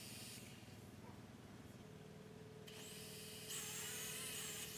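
Small motors of a toy foldable quadcopter drone spinning with a high-pitched whine: a short burst at the start, then spinning up again about two and a half seconds in, louder about a second later.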